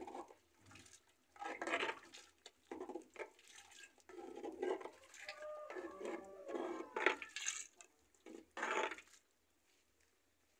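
A plate used as a pot lid clattering and scraping against a cooking pot in a run of short, irregular knocks and scrapes, some briefly ringing, that stop about nine seconds in.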